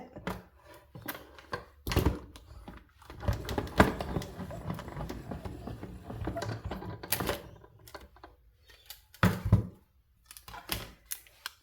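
Manual die-cutting machine being cranked, the cutting plates passing through the rollers with a run of irregular clicks and knocks and a couple of heavier thumps.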